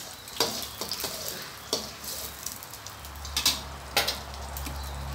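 Beaten eggs sizzling in hot oil in a stainless steel wok, with a metal spatula scraping and knocking against the wok several times as they are stirred. A low hum sets in about three seconds in.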